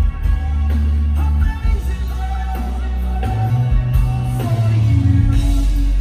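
Live band music over a concert PA, with a strong, steady bass line and a male singer's voice.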